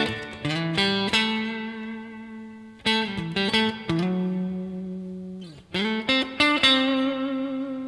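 Electric guitar (a Fender Stratocaster) playing a slow lead line in A Dorian: single sustained notes, each picked and left to ring, joined by slides and bends.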